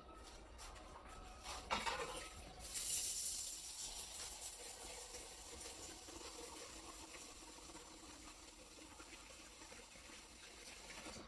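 A short clatter, then a hiss that swells and slowly fades, like running water or food sizzling in a pan.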